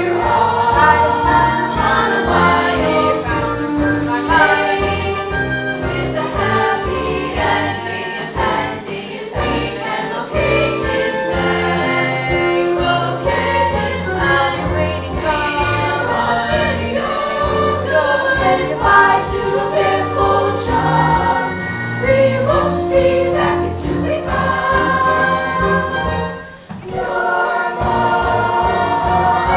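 Music with a choir singing, with a brief dip in loudness near the end.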